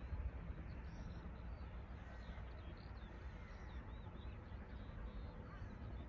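Small birds chirping and singing in short scattered calls over a steady low rumble of wind on the microphone.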